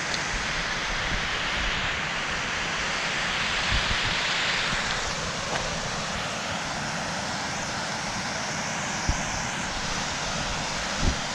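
Steady rushing outdoor noise of wind and a small hillside stream running beside a gravel path. A few dull thumps come near the end.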